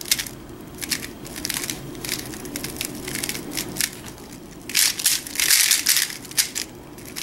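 MoYu Aolong v2 3x3 speedcube being turned fast by hand, its plastic layers clicking and clacking in quick runs of turns as an F-perm algorithm is executed. The longest and loudest flurry of turns comes about five seconds in.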